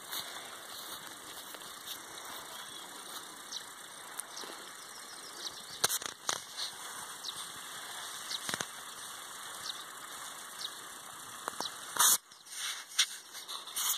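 Steady background hiss broken by scattered clicks and knocks of fingers handling the phone, with a loud cluster about twelve seconds in.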